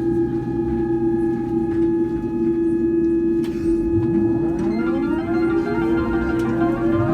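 Boeing 787 systems on the ground: a steady mechanical hum with high whining tones. About four seconds in, a machine spins up with a rising whine that climbs quickly and settles, and a second rising whine starts near the end.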